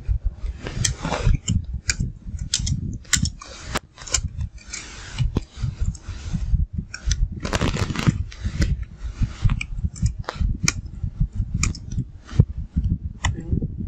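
Computer keyboard typing: irregular, quick key clicks and thuds, with a few short stretches of hissing noise.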